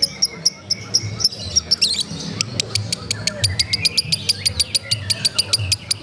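Lovebird chattering its continuous 'ngekek' song in the stuttering 'konslet' style: a long run of sharp, rapid chirps, softer for the first couple of seconds, then a steady stream of about eight a second.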